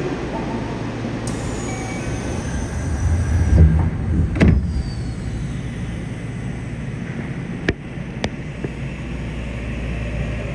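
Yokohama Municipal Subway 3000R train standing at the platform with its equipment humming steadily. Its doors slide shut with a rumble and a knock about four seconds in, followed by two sharp clicks.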